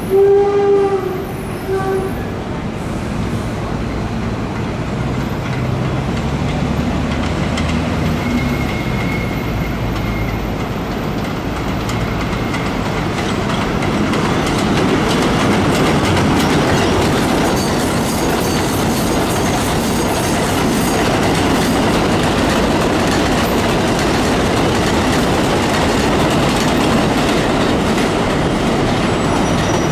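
New York City Subway 7 line train running along the track, wheels clattering on the rails with faint wheel squeal. The noise builds over the first dozen seconds or so, then holds steady and loud.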